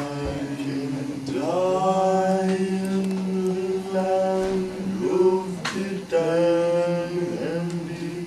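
Male voices chanting long held notes without instruments, each note sustained for a second or two before sliding to a new pitch.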